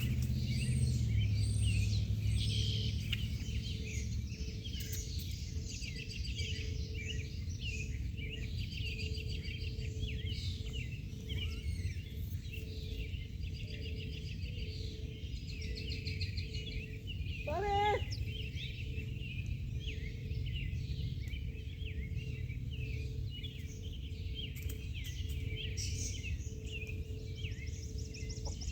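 Many small birds chirping and twittering continuously over a low, steady rumble. About 18 seconds in, a larger bird gives a single short, louder call.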